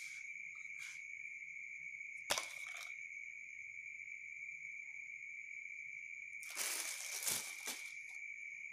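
Crickets chirring steadily in the background. A single sharp tap comes a little over two seconds in, and near the end there is a short crinkling rustle with a knock.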